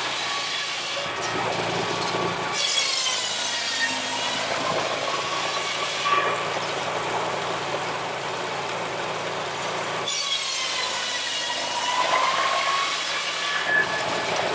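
Shingle mill's circular saw whining as it cuts, the pitch sagging as the blade bites into the wood and climbing back as the cut finishes, about twice, over a steady low engine drone.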